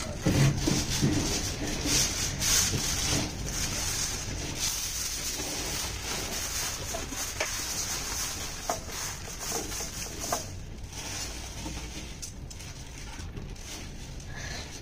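Aluminium foil crinkling and rustling as it is folded and scrunched by hand around a piece of meat, with irregular crackles throughout.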